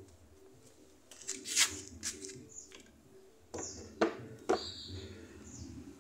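Cast-iron Singer sewing machine head being tipped back on its hinges to expose the underside: several sharp knocks and clicks of metal and wood as it is handled, the strongest about a second and a half in and around four seconds in.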